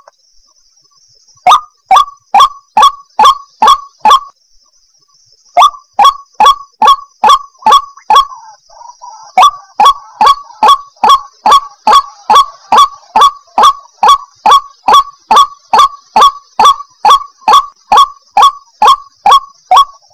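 White-breasted waterhen (ruak-ruak) calling, a loud, harsh note repeated about three times a second in long runs. The calls pause briefly at the start and again about four seconds in, then run on without a break. This is a lure call of the kind used to draw wild waterhens to a trap.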